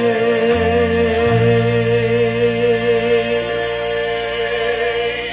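A man's voice holding one long sung note with a wavering vibrato, over low instrumental accompaniment whose bass notes change underneath.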